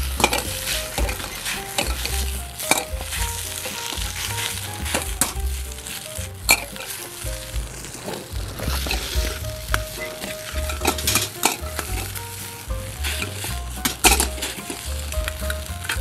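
Fried rice sizzling in a hot wok as it is stir-fried. A metal ladle scrapes the pan and clacks against it every few seconds.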